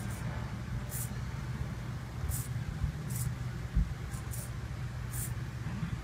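Small blue micro hobby servo whirring in short, high-pitched bursts about once a second as the joystick moves it to new positions, over a steady low hum; one dull thump a little before the middle.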